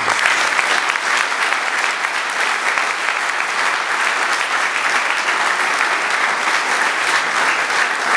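Audience applauding: dense, steady clapping that starts suddenly as the speech breaks off and holds at an even level.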